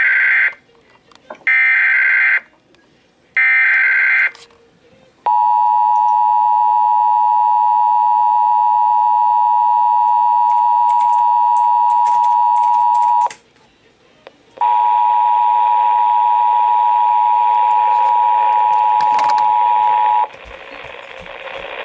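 Emergency Alert System signalling: three short bursts of the screeching SAME header data, about a second apart, then the steady two-tone EAS attention signal held for about eight seconds. After a brief gap the attention tone sounds again for about six seconds and cuts off near the end.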